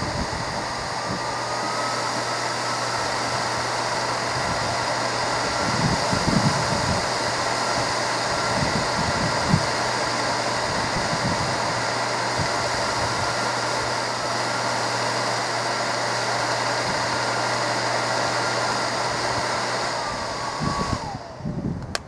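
Twin squirrel-cage blower fan running hard on a bench power supply: a steady rushing whir with a whine that climbs slightly in the first few seconds, then holds. About 21 seconds in, the power drops and the whine falls away as the fan spins down. A few low thumps sound along the way.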